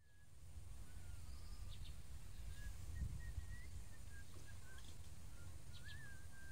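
Rural field ambience: birds calling with thin, wavering whistles and a few short high chirps, over a steady faint high hiss and a low rumble.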